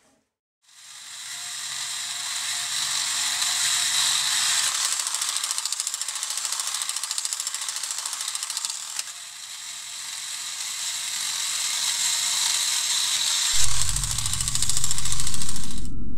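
Tin toy robot's mechanism running with a fast whirring rattle. Near the end a low drone comes in underneath.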